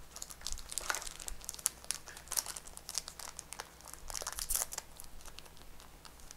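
Foil trading-card booster pack wrapper crinkling as fingers work it open, in irregular crackles with a louder stretch about four seconds in.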